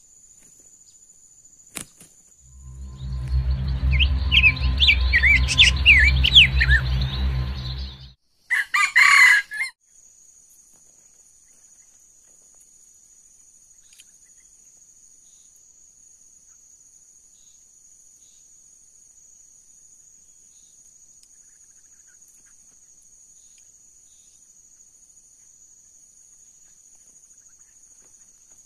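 A loud intro sound with a deep booming base and high chirping calls over it lasts about five seconds and stops abruptly. Then comes a short crow-like call of a red junglefowl cock, followed by a faint, steady, high insect trill with a regular pulse for the rest.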